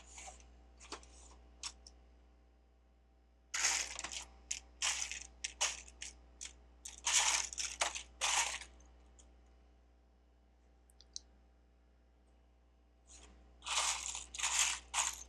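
Loose plastic Lego bricks clattering and clicking as hands rummage through a pile of pieces, in two spells of rattling with a few scattered clicks at the start and a quiet pause in the middle.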